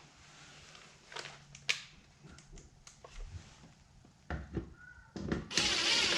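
Light clicks and knocks of small screws and a tool being handled at a car's interior door panel, then a louder, denser noise burst lasting under a second near the end.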